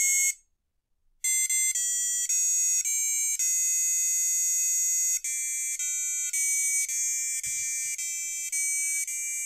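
A simple electronic tune played as single high-pitched beeping notes through the double-heart LED kit's little speaker, driven by its controller chip. One song cuts off just after the start and, after about a second of silence, another begins.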